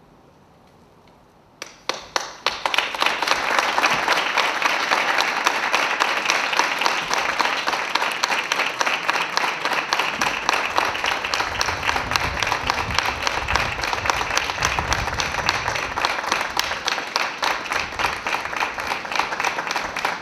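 Near silence for about two seconds, then a small crowd starts clapping and keeps up steady applause, marking the end of a minute of silence.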